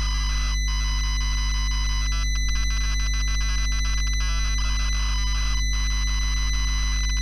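ZX Spectrum 48K cassette data signal during a tape load: a harsh, steady warbling screech of data bits, broken by a few very short gaps, over a steady low hum.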